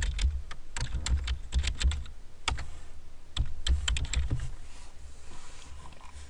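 Typing on a computer keyboard: quick bursts of keystrokes that stop about four and a half seconds in.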